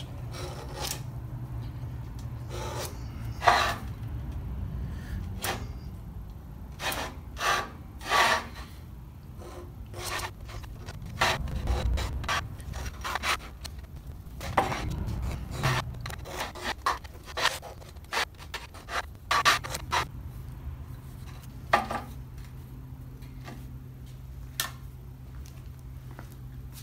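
Hand deburring tool scraping the cut edges of a thick steel plate: a series of short, irregular scrapes as the blade shaves burrs off the steel.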